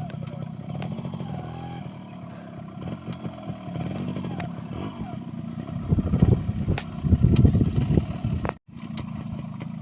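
Yamaha RX100 motorcycle's two-stroke single engine running, with scattered clatter and louder bursts about six and seven seconds in. The sound cuts out for a moment near the end.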